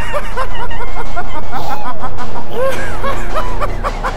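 Squeaky, high-pitched chattering and giggling of cartoon-voiced puppet martens, many quick rising-and-falling chirps, over background music with a steady bass.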